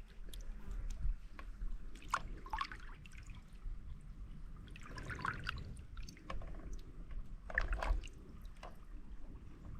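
Shallow river water trickling, with irregular splashes and clicks close by, several of them, most marked about two, five and eight seconds in.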